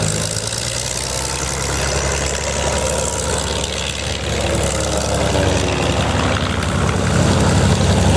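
A B-17 Flying Fortress's four Wright Cyclone radial engines droning steadily, with a gentle shift in pitch as the aircraft passes.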